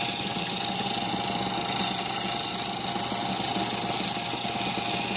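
Wood lathe running steadily, with a constant high-pitched whine.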